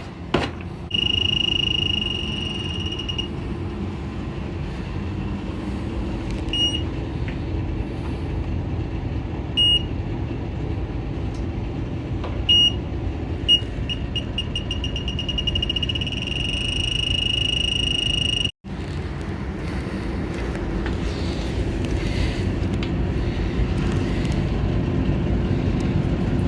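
Electronic combustible-gas leak detector sounding over a steady low rumble: a high steady tone for about two seconds, then single beeps several seconds apart. About fourteen seconds in the beeps quicken until they run into one continuous alarm tone, which signals gas at a small leak in the furnace's gas line. The tone cuts off abruptly about two-thirds of the way through, leaving only the low rumble.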